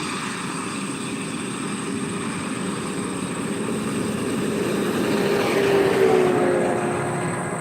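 A motor vehicle passing: a steady noise of engine and tyres that builds to its loudest about six seconds in, with a low hum that drops slightly in pitch as it goes by, then eases off.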